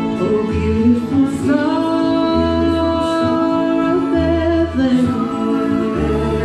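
A woman singing a slow song over instrumental accompaniment, with held, gliding notes and a deep bass note returning about every two seconds.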